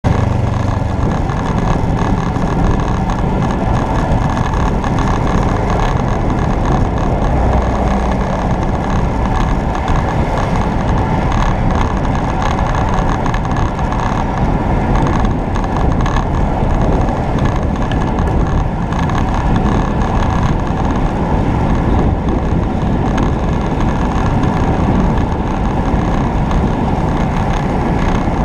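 Motorcycle on the move: steady, loud wind rush over the microphone with the bike's engine running underneath.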